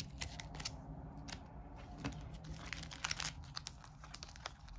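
Board game cards being handled and set down: a scatter of faint clicks, taps and crinkling.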